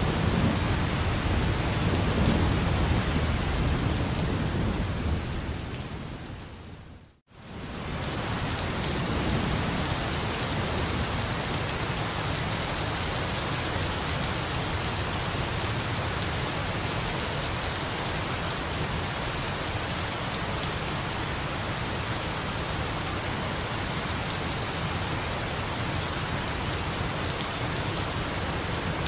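Heavy rain falling steadily, with a low rumble of thunder in the first few seconds. About seven seconds in, the sound fades out to near silence for a moment, then the rain comes back evenly.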